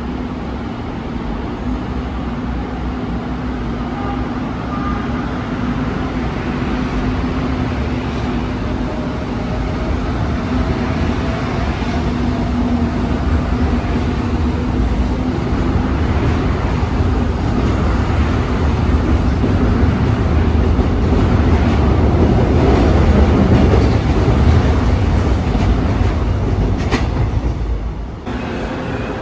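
Seoul Subway Line 1 electric train pulling out past the platform screen doors: a steady rumble and wheel noise with a motor hum that build to their loudest about three-quarters of the way through, then drop suddenly shortly before the end.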